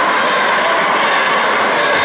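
Spectator crowd in a sports hall: many voices shouting and cheering together in a steady din.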